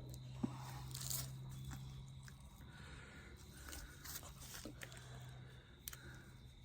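Faint clicks and scrapes of hands working on the wiring of a 30 amp shore power plug, over a steady low hum that is louder for the first couple of seconds.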